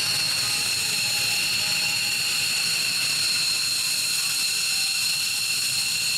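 F-15 fighter's twin turbofan engines at taxi power, giving a steady, loud, high-pitched jet whine as the jet taxis past.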